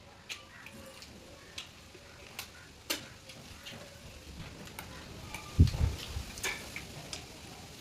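Eating noises: scattered wet smacking clicks of chewing, with one dull low thump a little after five and a half seconds in, the loudest sound.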